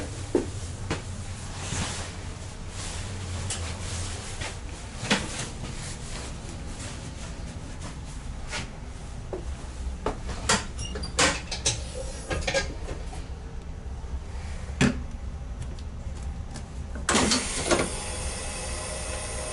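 Clicks and knocks of switches, levers and fittings being worked in an ICM electric train's driver's cab, over a steady low hum. Near the end a loud hiss starts suddenly and keeps going.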